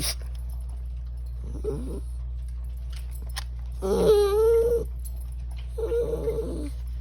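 Chihuahua vocalizing: three separate drawn-out, whine-like calls, the middle one about a second long, the loudest, with a wavering pitch.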